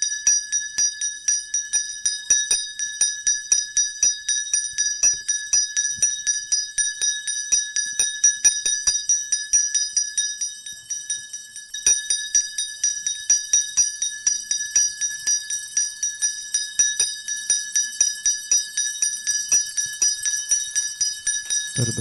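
Ribbon-tied school handbells rung continuously by graduates, quick repeated strikes at about four a second with a short break about halfway through: the ceremonial last bell, marking the end of their schooling.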